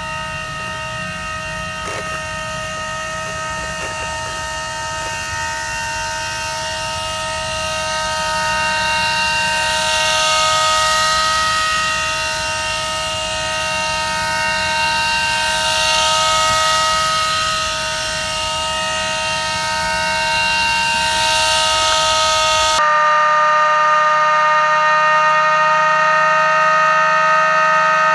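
Electric axial fan of a model airboat whining steadily at a constant pitch, with a rushing hiss that swells twice as the boat runs close by. About 23 seconds in the sound shifts abruptly and then runs steadier and a little louder.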